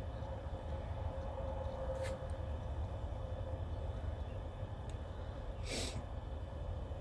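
A person with a tickly, allergy-irritated nose sniffing: a short sharp sniff near the end and a fainter one about two seconds in, over a steady low background rumble.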